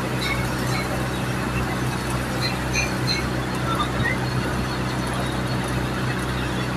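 Electric arc welding on a steel pipe joint, run vertical-up: the arc crackles and hisses steadily over the steady low hum of an engine running.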